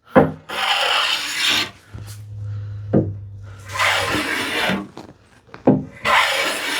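Hand plane being pushed along the edge of a solid cherry panel to break the sharp arris. Three rasping strokes of about a second each, each with a short knock near its start.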